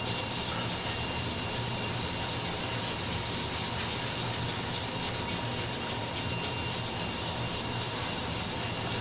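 A cloth rag wet with leather dye being rubbed steadily over a flame maple board, giving an even scrubbing hiss.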